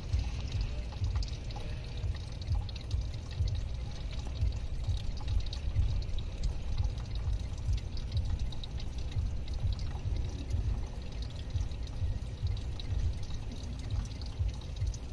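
Engine coolant draining from a 2003 Toyota Camry's opened radiator petcock, a steady stream of liquid pouring and splashing, over a steady low rumble.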